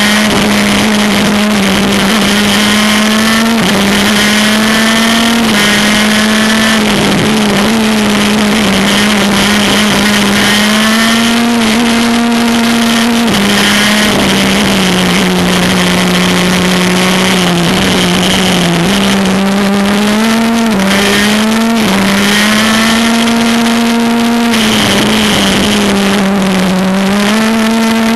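A 125cc Maxter two-stroke shifter kart engine running hard at high revs, heard from onboard. Its pitch climbs in each gear and jumps sharply up or down at each gear change, again and again through the lap.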